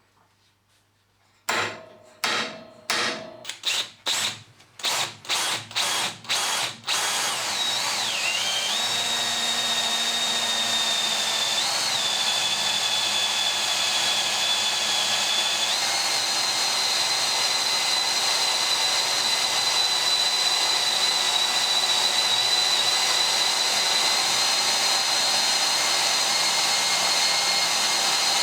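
Electric drill with an HSS bit drilling into mild steel. After a moment of quiet come about ten short bursts over five seconds, then a steady run with a constant high whine that steps up slightly in pitch about halfway.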